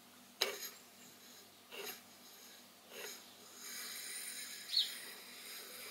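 Three light metallic clicks in the first three seconds, then a soft scratching with a brief squeak: a height gauge being set against the part and its scriber drawn around a model steam-engine cylinder held in a steel vise to mark a line.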